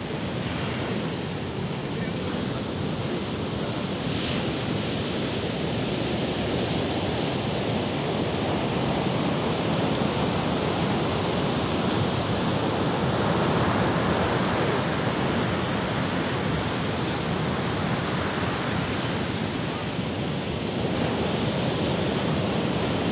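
Ocean surf breaking and washing up the beach, a steady rush that swells a little about halfway through, with wind buffeting the microphone.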